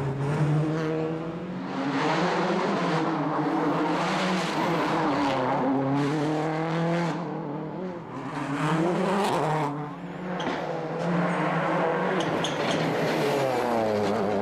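A World Rally Car engine at full stage pace, heard from inside the car. The engine note climbs and drops back with each gear change, and the throttle lifts briefly twice, about eight and ten seconds in.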